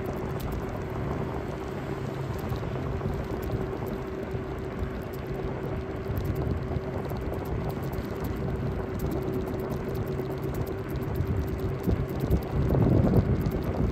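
Riding an electric scooter: wind buffets the microphone and the wheels rumble on the road, with a steady hum under it. It gets louder and rougher near the end.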